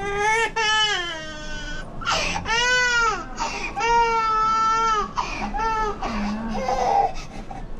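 An infant crying hard in a series of long wails, about four cries with short breaths between them, the first one falling in pitch as it trails off.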